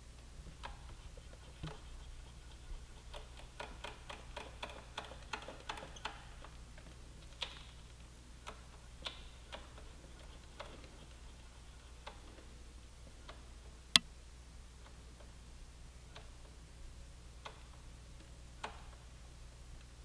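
Faint, scattered light clicks and ticks of a wrench and brake parts being handled while bleeding a motorcycle's rear brake at the caliper bleeder valve. There is a quick run of clicks a few seconds in and one sharper, louder click about fourteen seconds in, over a low steady hum.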